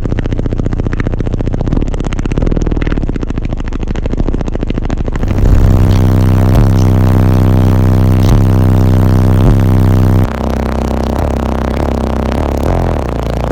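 Extremely loud car-audio subwoofer bass, deep held notes of a rap track from six Sundown Neo 18-inch subwoofers. It jumps louder about five seconds in and eases back near ten seconds.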